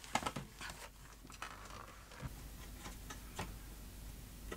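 Faint handling noise from taking apart an LCD monitor: a few light clicks and brief rustles as hands work at its metal-shielded board assembly and cables.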